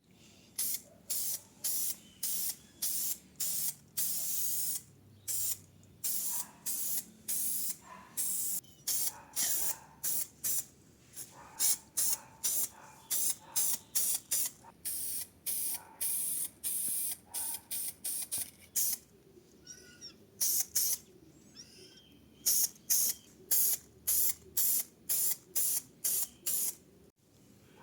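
Spray nozzle hissing in many short bursts, about two a second, with a few brief pauses along the way.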